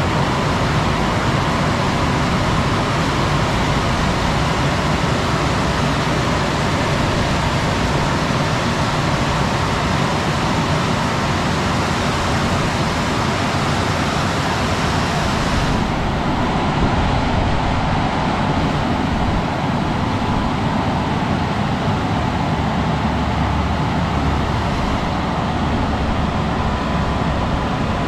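Rollover car wash's drying blowers running, a loud steady rush with a faint whine. About sixteen seconds in the hiss at the top end drops away.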